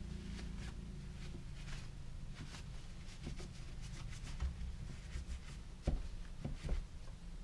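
A rag rubbing and wiping the inside of a metal airsoft gearbox shell half to clean it, a run of short scratchy swipes. A few dull knocks come near the end as the shell and parts are handled.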